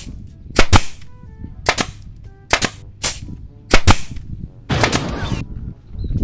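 Toy pistol firing a string of sharp gunshot-like bangs, several in quick pairs, then a longer hissing burst about five seconds in.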